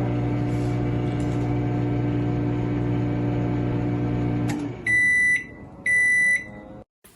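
Toshiba air fryer microwave combo running with a steady hum, which stops with a click about four and a half seconds in, followed by two loud, high beeps about a second apart as the cycle ends.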